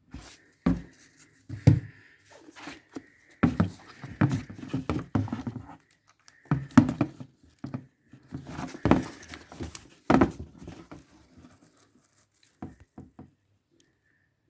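Irregular clicking and rattling in clusters, as a Powerslide HC EVO Pro inline skate boot is handled and its top cuff buckle is worked. This is the buckle rivet play that is the boot's known noise defect.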